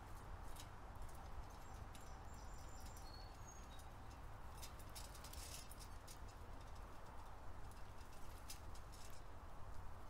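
Birds at a hanging metal tube seed feeder: scattered sharp clicks and taps of beak and claws on the feeder and perches, with a short rustling burst about halfway through. A few faint, short high bird chirps come between one and four seconds in, over a low steady outdoor rumble.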